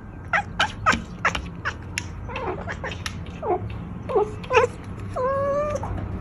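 Pet cat making odd vocal sounds: a quick string of short chirps, then a few falling calls and one longer, steadier meow about five seconds in.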